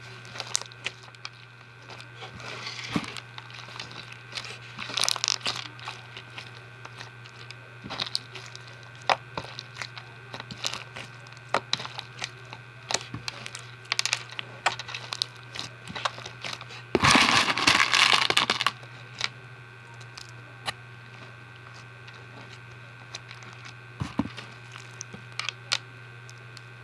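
Slime mixed with clear fishbowl beads being squeezed and worked by hand, giving scattered crunchy crackles and pops, with a louder crunching burst of under two seconds about two-thirds of the way through. A steady low hum runs underneath.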